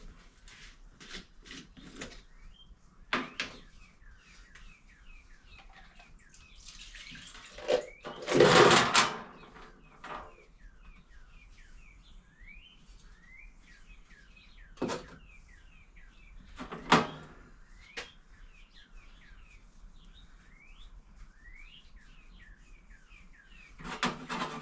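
Small birds chirping steadily in the background while brake parts are handled and set down, with scattered sharp knocks and clanks. The loudest is a longer clatter about a third of the way in.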